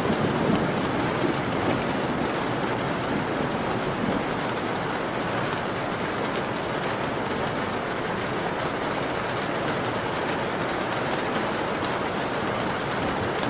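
Steady rain falling, an even hiss with scattered drop ticks. A low rumble of thunder fades out in the first second or two.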